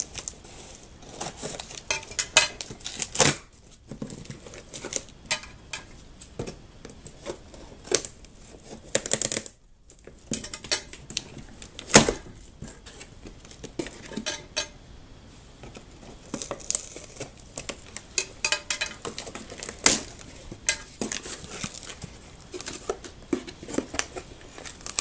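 Scissors cutting and scraping along the packing tape of a cardboard box, then the cardboard flaps being pulled open and packing paper rustling: a string of irregular clicks, scrapes and crinkles, with one sharp knock about halfway through.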